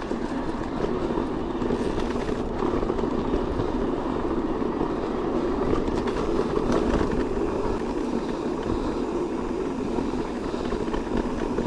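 Decathlon Stilus electric mountain bike rolling along a dirt trail: a steady rumble of tyre and riding noise.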